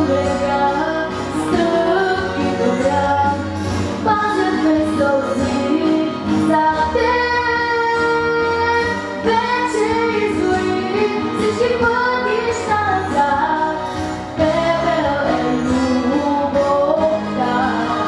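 A girl singing a song into a handheld microphone, with musical accompaniment; about seven seconds in she holds one long note for roughly two seconds.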